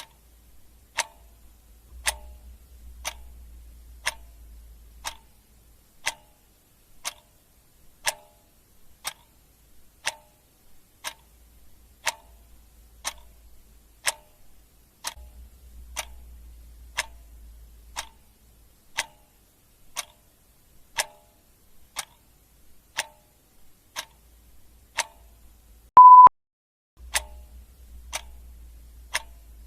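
Clock ticking steadily, one tick a second. Near the end a single short electronic beep at one steady pitch sounds, louder than the ticks.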